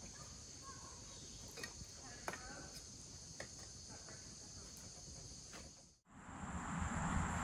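Insects trilling steadily, with a few faint clicks of utensils on plates. About six seconds in the sound cuts out and comes back louder: the same insect trill over a steady low outdoor rumble.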